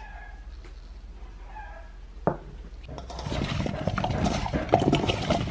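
Crinkle-cut potato slices tossed by hand in a stainless-steel bowl: after a single knock, a dense rattling clatter of slices against the metal starts about three seconds in and grows louder.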